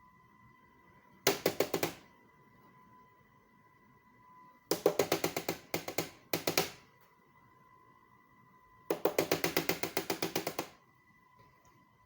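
Three runs of rapid, evenly spaced knocks, about eight a second, the last one the longest, over a faint steady high tone.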